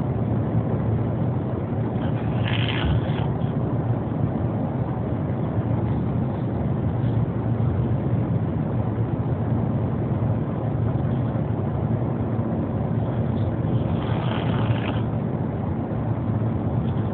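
Steady low rumble of a moving car heard from inside the cabin, with a young child snoring; two louder snoring breaths stand out, one near the start and one late on.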